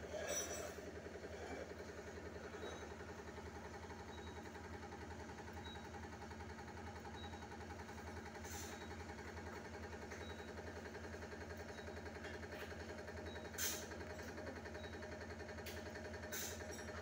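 Hydraulic pump of a concrete compression testing machine running with a steady hum while it loads a concrete cube, the load climbing. A few sharp clicks sound over it, the loudest about two-thirds of the way through.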